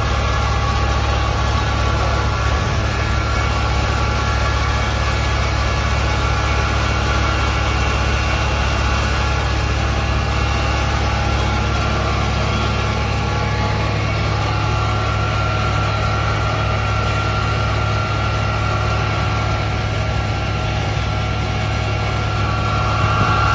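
Fire engine's engine idling steadily, a continuous low hum.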